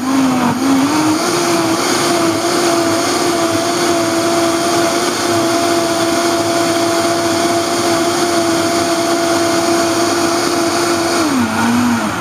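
Vitamix blender motor pureeing cooked winter squash. Its pitch climbs over the first second as the speed is turned up, holds steady at high speed, then drops and winds down near the end.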